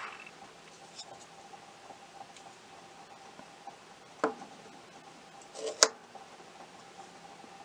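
Handling noise from a digital caliper being lowered against a wooden tabletop: a few small clicks and taps, the sharpest a little before the end, over a faint steady hum.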